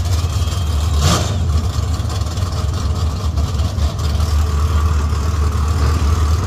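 Drag race car engines idling at the starting line, a steady low rumble, with one brief sharp burst about a second in.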